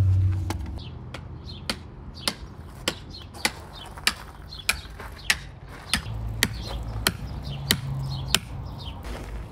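Small sledgehammer striking in a steady rhythm, about fourteen blows roughly 0.6 s apart, each with a short bright ring, stopping about a second before the end.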